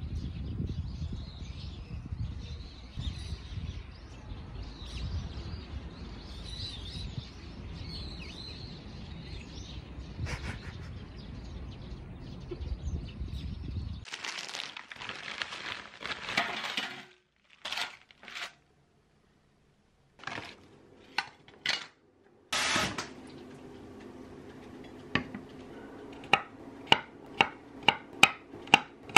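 Faint bird chirps over a steady low outdoor rumble give way, after a few short clattering noises, to a kitchen knife slicing garlic cloves on a wooden cutting board. The sharp knocks of the blade on the board come about twice a second near the end.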